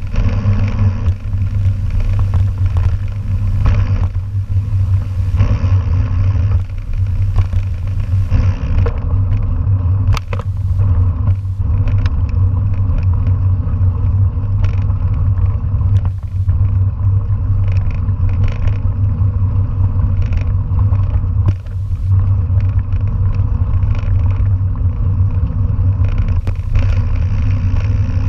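Mountain bike rolling over a gravel forest road: a steady low rumble of tyres and wind on the camera microphone, with scattered clicks and rattles from the bike as it goes over bumps.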